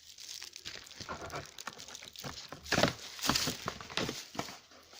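A small boxed cutlery set being handled: irregular light clicks and knocks, loudest about three seconds in.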